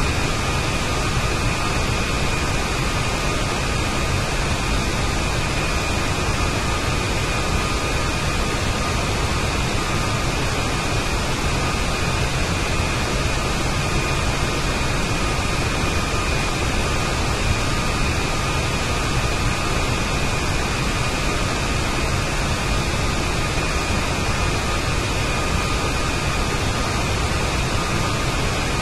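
CFM LEAP turbofan jet engine running steadily at cruise: an even, unchanging rush of noise with two faint, steady high tones running through it.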